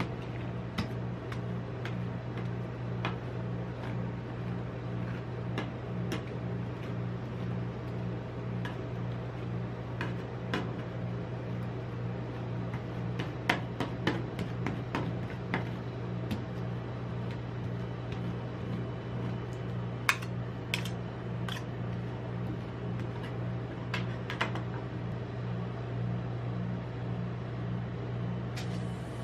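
Metal spatulas scraping and tapping on the frozen steel plate of a rolled-ice-cream machine as ice cream is spread flat, over a steady low hum from the machine's refrigeration unit. The taps are irregular, thickest about halfway through and again around three quarters of the way.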